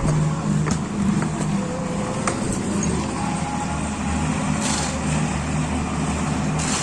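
Engine of heavy road-construction machinery running steadily, with a few sharp knocks in the first couple of seconds and two short bursts of hiss near the end.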